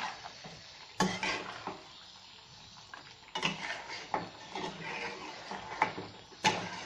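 Spatula stirring thick chicken korma gravy in a metal pan: wet scraping and squelching, with several sharp knocks and scrapes against the pan at irregular intervals of a second or two.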